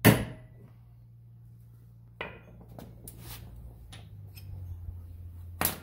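Hammer striking a manual impact driver once, with a sharp metal crack that is the loudest sound here. The blow makes the driver index its Torx 40 bit a little to break loose a stuck windshield-hinge bolt. Smaller metallic knocks and clinks of the tool being handled follow, with another sharp knock near the end.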